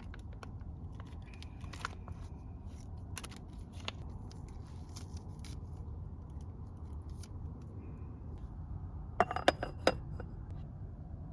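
Steady low hum of a small ventilation fan, with scattered light clicks of utensils being handled and a quick cluster of sharp clicks about nine seconds in, the loudest sound.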